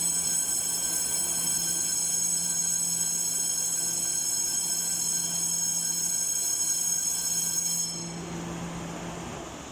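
Station platform departure bell ringing steadily, then cutting off about eight seconds in, followed by the rumble of a Taiwan Railway EMU700 electric local train starting to pull out of the station.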